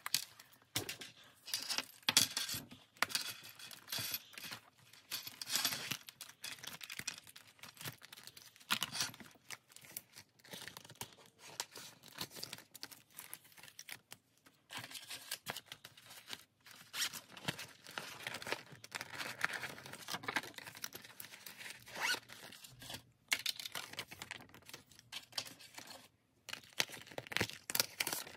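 Banknotes and plastic cash-envelope sleeves rustling and crinkling in irregular bursts as they are handled, with a few light taps from a binder.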